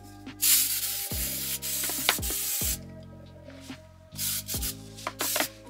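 Aerosol can of Lysol disinfectant spray hissing into a plastic foot spa basin: one long spray of about two seconds, then a few shorter sprays near the end.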